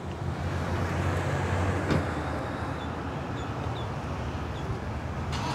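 A vehicle engine running steadily at a low pitch under open-air background noise, with a brief click about two seconds in.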